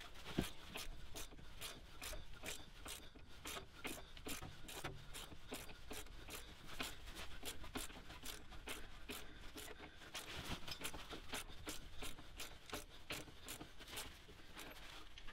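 Click-type torque wrench ratcheting, a quick, faint run of clicks with some metal rubbing, as it turns the bolt of a bush installation press that draws the new rear axle bush into its housing.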